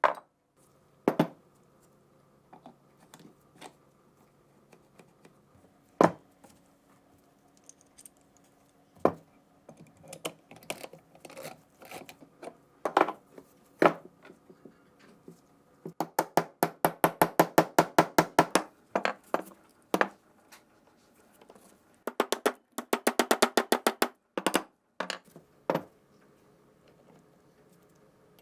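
Hammer tapping on metal gun parts: scattered single knocks, then two long runs of quick taps about ten a second, over a faint steady hum.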